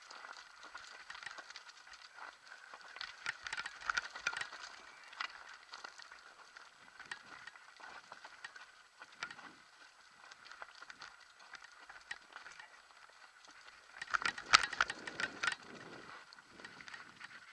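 Mountain bike clattering down a rocky, gravelly trail: a continual rattle of the bike and tyres over loose stones, with two rough stretches of louder jolts, the hardest about fourteen seconds in.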